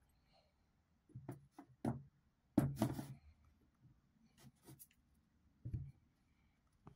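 Handling noise as a glass round-bottom flask and cardboard tape-core ring stands are picked up, set down and shifted on a wooden board: a few scattered clicks, taps and scrapes, the loudest about two and a half seconds in.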